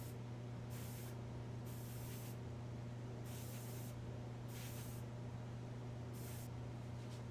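Airbrush spraying Tamiya flat black acrylic in about five short bursts of hiss, each around half a second, over a steady low hum.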